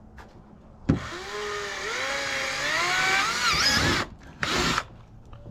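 Power drill working on the kayak's plastic hull for about three seconds, its motor whine rising in pitch and wavering under load, then a second short burst.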